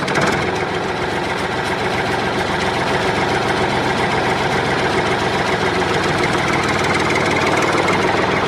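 A motor running steadily, a dense mechanical hum with a rapid low pulsing.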